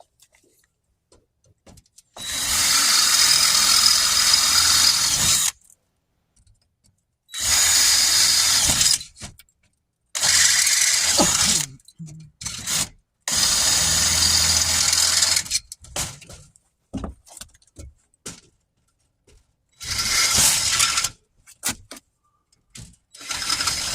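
Power drill boring holes through a storm door with a larger bit, run in about six bursts of one to three seconds with short pauses between, as the holes are opened up to fit a new latch.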